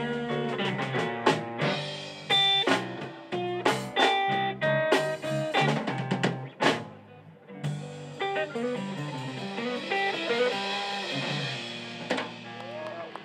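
Live blues band playing: an electric guitar picks single-note lead lines over a drum kit, with a short break in the guitar about seven seconds in and cymbals ringing after it.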